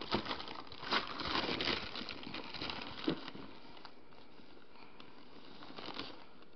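Measuring cup scooping whole wheat flour in a plastic flour container: rustling and crinkling, busiest in the first two seconds, with a single light knock about three seconds in.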